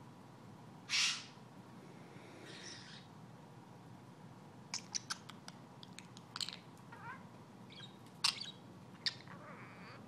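Budgerigar vocalising: one loud short squawk about a second in, then a run of short chirps and sharp clicks over the second half.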